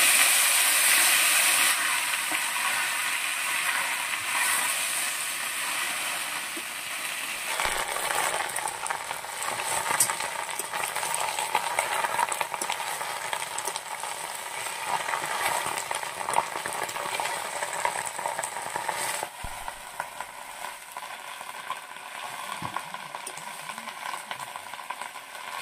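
Food frying in hot oil in a pan: a dense crackling sizzle, loudest at first and dying down gradually, with a couple of abrupt drops in level.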